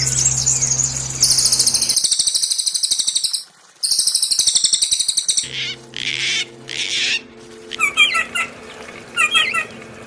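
Small songbirds singing, as used for 'masteran' training of caged songbirds: fast, high-pitched rattling trills with a brief break, then three harsh, raspy calls and short chirping phrases. A low steady hum runs underneath early on and again near the end.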